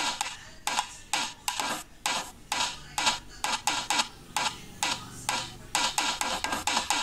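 Thavil drumming: sharp, cracking strokes in an uneven rhythm, about three a second, each followed by a brief falling ring.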